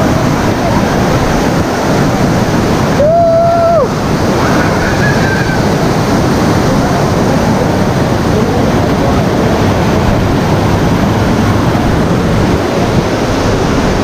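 Amboli waterfall's steady rush of falling water, close and loud, with wind buffeting the microphone. A brief held tone sounds about three seconds in.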